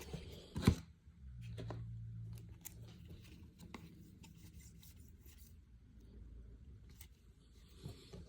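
Trading cards being handled and sorted by hand: light rubbing, sliding and small ticks, with one sharp tap just under a second in.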